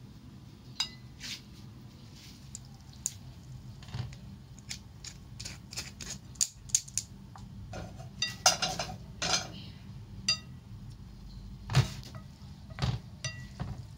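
Kitchen utensils and a metal strainer clinking and tapping against dishes and pans: a scattered series of sharp clinks, some ringing briefly, busiest in the second half.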